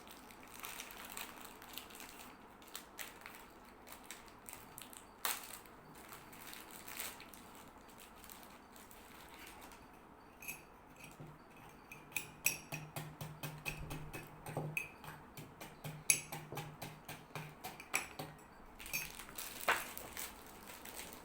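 Biscuits being crushed and crunched, with light clinks of a spoon and dishes: faint scattered clicks that quicken into a rapid run of crunching clicks about halfway through.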